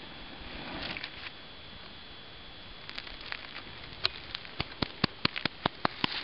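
A newly lit friction fire crackling, its sharp pops starting about three seconds in and coming faster and louder toward the end as the flame takes hold. A brief soft rush comes about a second in.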